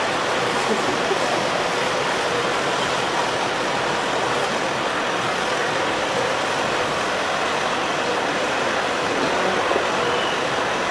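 Nissan Navara pickup crawling up a steep ramp in four-wheel drive: a steady, even rushing vehicle noise with no revving or sudden changes.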